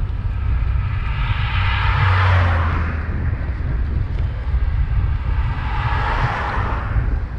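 Two cars passing one after the other in the oncoming lane, the second an Audi saloon: tyre and engine noise swells and fades about two seconds in and again about six seconds in. Under it is a steady low wind rumble on the bicycle-mounted microphone.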